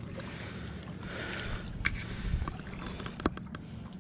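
A steady low engine hum, with a few sharp clicks about two and three seconds in.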